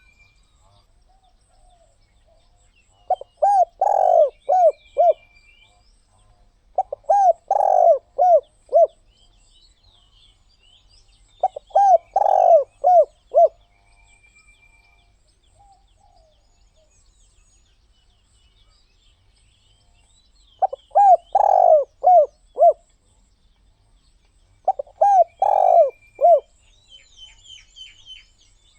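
Spotted dove cooing: five phrases of several quick coos each, spaced a few seconds apart. Faint chirps of small birds sound between the phrases.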